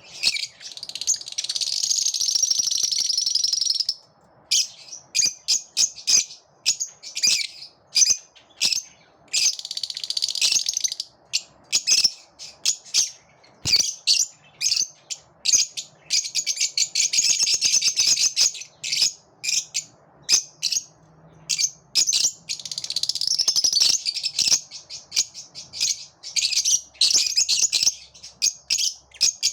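Several lovebirds chirping shrilly together. Dense, rapid runs of chirps a few seconds long alternate with stretches of separate short chirps.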